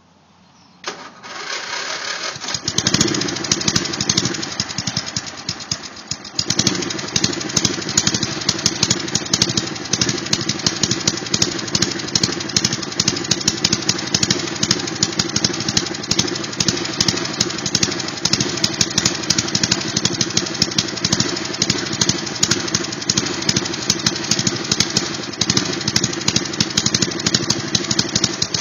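Old Briggs & Stratton four-stroke engine of a riding lawn mower, converted to run on propane, starting and catching about two and a half seconds in, then running with a quick firing beat. It gets louder about six seconds in and keeps running steadily.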